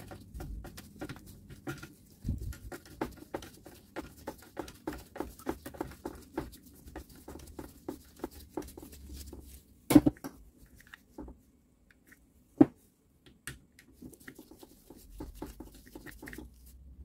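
Quick, irregular light clicks and rattles of small circular-saw parts being handled and fitted into the gear housing. Two sharper knocks come about ten seconds in and again a couple of seconds later.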